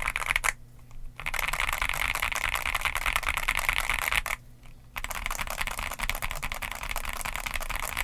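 Fast typing on a Yunzii AL66 CNC-aluminium mechanical keyboard with Outemu Milk linear switches and Cherry-profile PBT keycaps. The keystrokes come as a dense stream, broken by two short pauses: one about half a second in and one just past the four-second mark.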